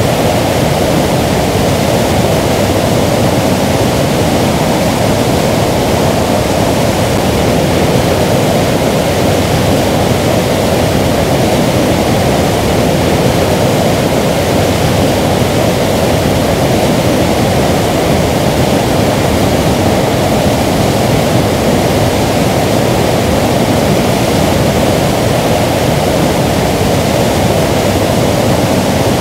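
Waterfall: a loud, steady rush of falling water, deep and even, with no change throughout.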